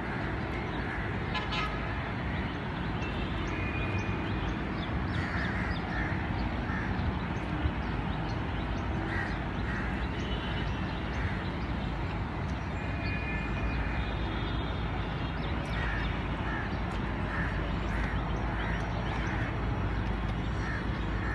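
Crows cawing again and again, short calls every second or two, over a steady low rumble.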